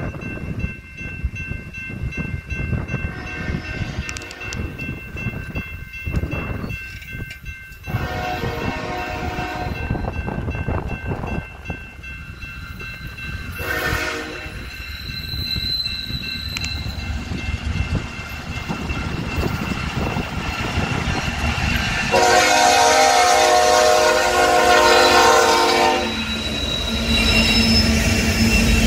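Approaching diesel freight train sounding its multi-chime air horn in the grade-crossing pattern: two longer blasts, a short one, then a long loud blast as the locomotives reach the crossing, over the rumble of the engines and a crossing bell ringing steadily.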